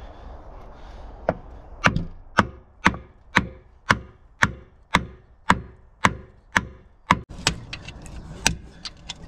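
Hammer blows on the top of a wooden post standing on a piston of a seized Land Rover 200Tdi diesel engine, about two a second in a steady rhythm, then a few looser knocks near the end. The blows are driving the stuck piston down to free the seized engine, and it is just starting to move.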